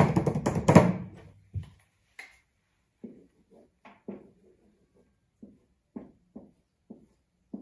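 A quick drum roll of rapid taps for about a second and a half, then a marker writing on a whiteboard in short separate strokes.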